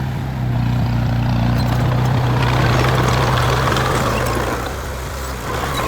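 Heavy construction machine's diesel engine running steadily, with scattered light clicks and rattles over it.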